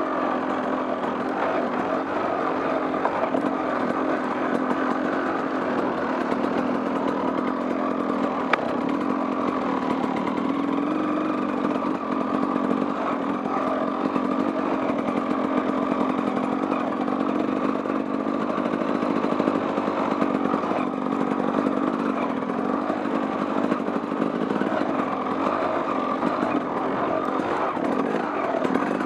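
Off-road vehicle engine running steadily while riding a trail, its pitch shifting a little with the throttle. A single sharp tick sounds about eight seconds in.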